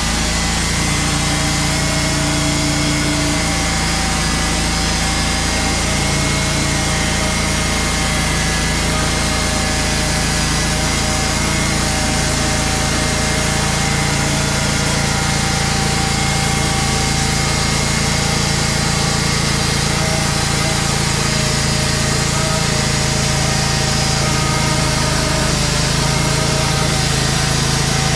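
Wood-Mizer LT35 portable band sawmill running steadily, its engine and band blade turning as the saw head moves along a white oak log. Near the end the blade is in the cut, throwing sawdust from the chute.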